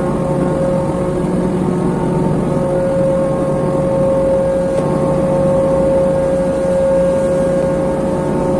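Steady, loud running of a container ship's deck machinery: a constant droning rumble with a steady mid-pitched hum that does not change.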